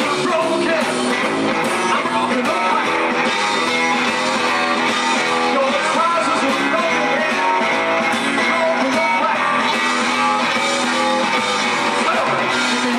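Live blues band playing, electric guitar to the fore over drums.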